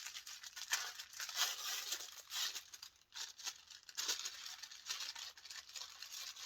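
Packaging being handled and torn open by hand: irregular crinkling and tearing rustles, with a short pause about halfway through.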